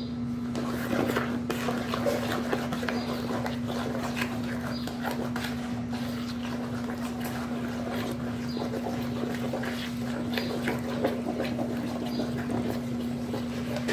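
Wooden spoon stirring and scraping a wet flour-and-egg bread dough in a plastic bowl, with many irregular scrapes and knocks against the bowl. A steady low hum runs underneath.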